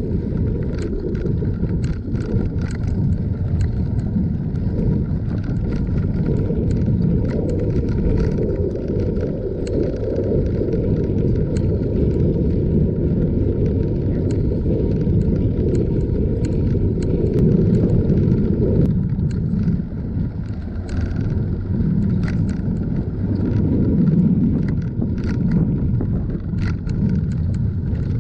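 Steady rumble of wind on the microphone and tyre noise from a bicycle rolling along an asphalt path, with scattered small clicks.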